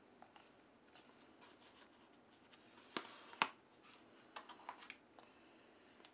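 Faint crinkling and clicking of a vinyl chassis-protector decal sheet being handled and set down, with two sharp snaps about three seconds in and a few lighter ticks a second or so later.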